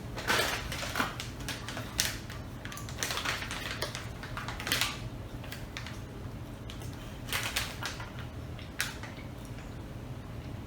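Irregular bursts of crackling and rustling from food packaging being handled, several short clusters a second or two apart over a low steady hum.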